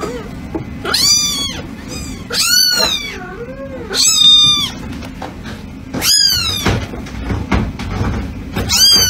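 Tiny grey-and-white kitten meowing: about five short, high-pitched meows, each rising and falling in pitch, spread a second or two apart.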